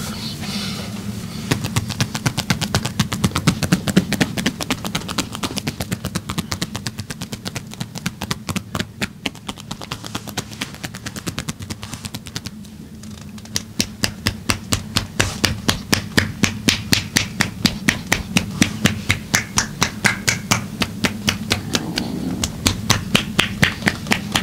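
Hands striking the body in rhythmic percussive massage strokes, about four sharp slaps a second, with a short pause about halfway through. A steady low hum runs underneath.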